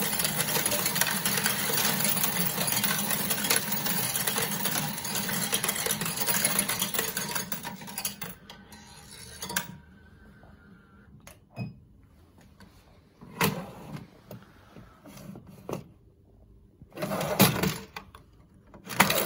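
RIBAO CS-610S+PRO coin sorter running, its motor and a steady rattle of coins through the sorting disc and rails; it winds down and stops about halfway through once the hopper is empty. Then scattered clicks and knocks as the sorted-coin bins at the front are handled, the loudest a short rattle near the end.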